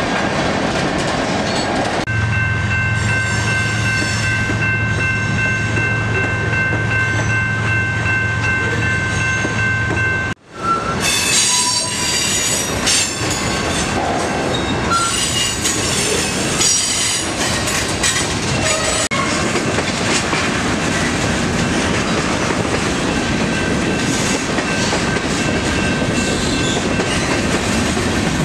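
Freight cars rolling past close by: a steady rumble of wheels on rail with clickety-clack over the joints and intermittent high wheel squeal. A steady tone is held from about two seconds in until the sound drops out for an instant about ten seconds in.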